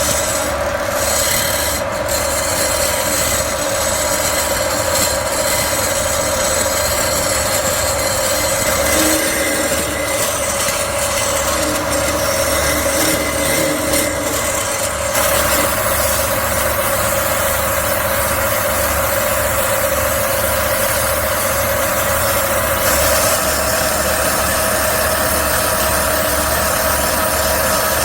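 A power tool's motor running steadily with an abrasive rubbing against metal, like a grinder or sander working the hammer. The sound changes abruptly a few times.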